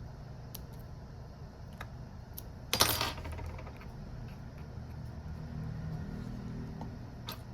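A small hard object clatters once on a work surface, about three seconds in, over a steady low hum with a few faint ticks.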